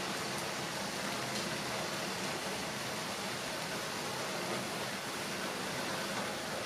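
Portable gas stove burner running under an aluminium pot of udon, a steady rushing hiss while the water heats for simmering the noodles.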